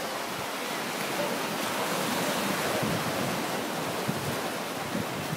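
Surf washing onto a sandy beach: a steady rush of noise that swells a little in the middle.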